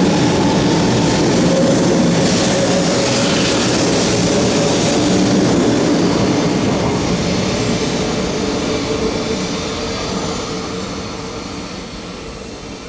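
500 Series Shinkansen accelerating out of a station: the cars roll past with a steady running rush and a faint hum from the traction motors. The tail car passes about six seconds in, and the sound then fades as the train pulls away.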